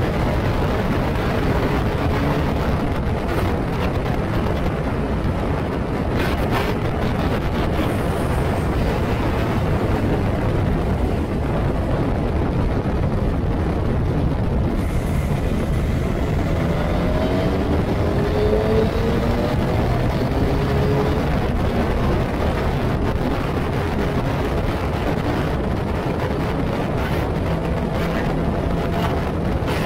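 Wind howling and buffeting on the microphone of an open-cockpit Formula Ford racing car at speed, over the car's engine. The engine note rises in pitch several times around the middle as the car accelerates.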